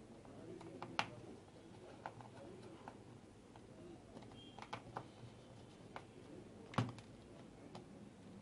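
Light clicks and taps of a small screwdriver and loose screws on a Samsung Galaxy S7 Edge's frame as its screws are taken out. Two sharper clicks stand out, about a second in and again near the end.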